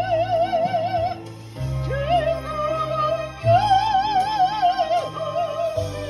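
Operatic soprano singing into a microphone, holding long notes with a wide vibrato over a low sustained accompaniment. One held note breaks off about a second in. The voice comes back with a rising note and then holds another long note.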